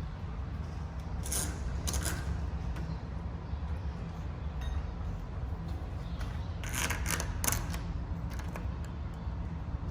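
Metal smart deadbolt parts being handled and fitted to a door, giving two short clusters of small metallic clicks and scrapes over a steady low background rumble.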